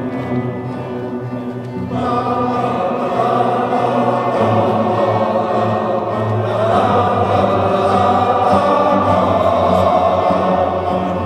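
Mixed choir singing a canon in sustained, held notes with a resonant reverberation, with new voices joining about two seconds in and again later, so the sound grows fuller and louder.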